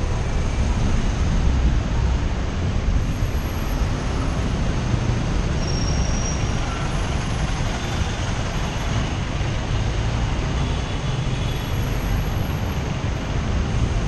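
Steady rushing road noise recorded on a moving bicycle, mostly a low rumble: wind on a helmet-mounted action camera's microphone mixed with the engines of slow traffic alongside.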